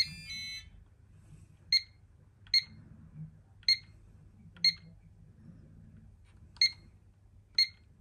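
Pyronix alarm keypad beeper: a short quick run of beeps at several pitches, then six single short key-press beeps about a second apart. Each beep acknowledges a key press as the engineer steps through the zone-programming menu.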